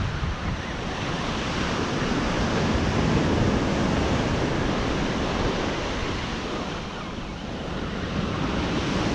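Ocean surf breaking and washing up a sandy beach, a steady rushing that swells a little midway, with wind buffeting the microphone.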